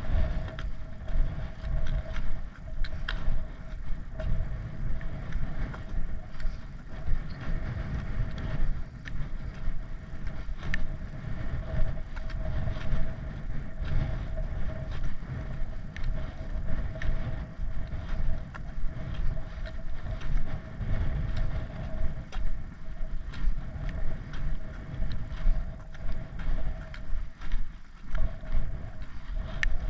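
Wind rumbling on an action camera's microphone during a steady walk, with regular footsteps and the light tap of a trekking pole on a tarmac lane. A faint thin steady whine sits underneath.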